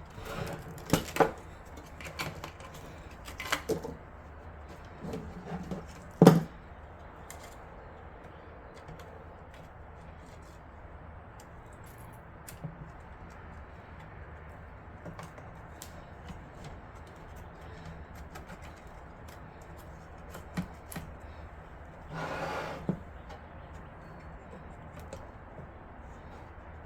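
Clicks and knocks of a graphics card and PC case parts being handled and fitted, several in the first six seconds with the loudest about six seconds in. After that, only a faint steady hum with a few light ticks and a short rustle near the end.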